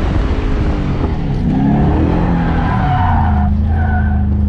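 LS3 V8 engine of a drifting Nissan 240SX revving up and down through a transition from one slide to the other, then held at steady revs near the end, with the tires squealing.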